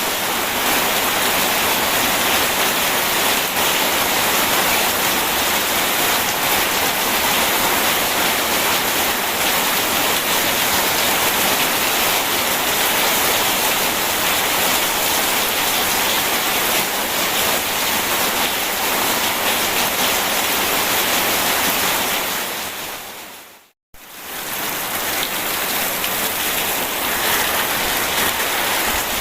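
Steady rain falling, a dense even hiss with no thunder. Near the end it briefly fades out to silence and fades back in.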